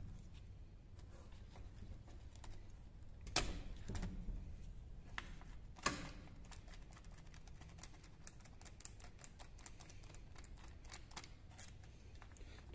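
A small metal wrench clicking and tapping on the throttle-cable nut of a two-stroke auger's carburetor as it is loosened: two louder knocks in the first half, then a run of quick, light metal ticks. The sound is faint overall.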